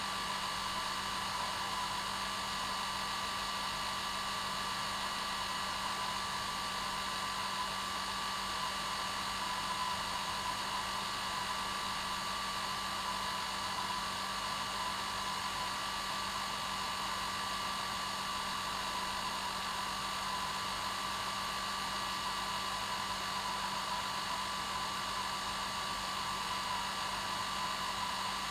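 Hair dryer running steadily: an even airflow hiss over a constant motor hum, used as white noise to lull a baby to sleep.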